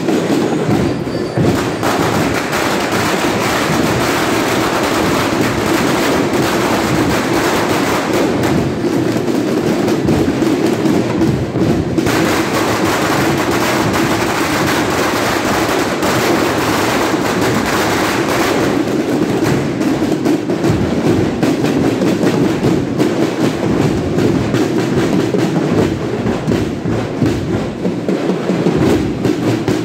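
Marching drum corps playing snare drums and bass drums in a continuous, dense drum cadence.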